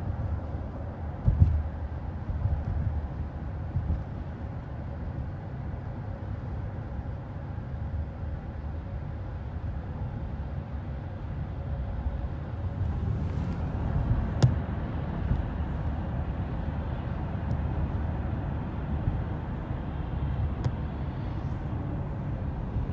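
Steady low rumble of road and engine noise inside a moving car's cabin in traffic, with a thump about a second in and a short sharp click about halfway through.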